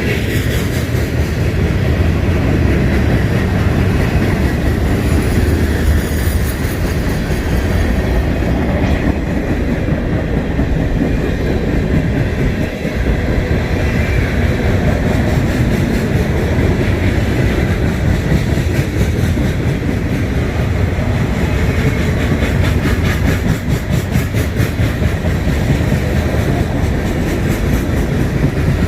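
A train rolling past: a steady, loud rumble of railroad cars, with the wheels clacking over the rail joints.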